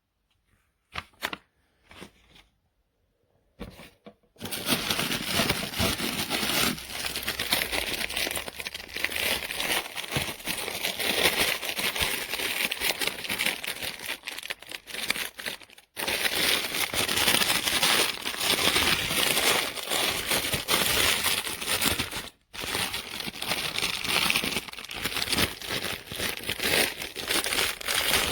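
Packaging being handled and crinkled: a few scattered clicks, then a long stretch of continuous crinkling and rustling that stops briefly twice.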